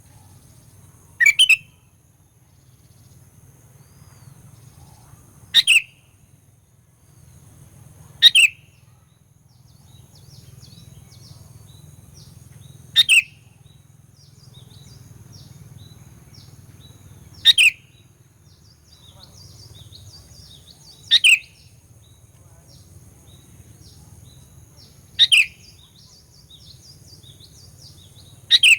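Sooty-headed bulbul (kutilang) giving a short, sharp call that sweeps quickly downward, repeated every three to five seconds, eight times in all. Faint twittering of other birds and a steady high whine run underneath.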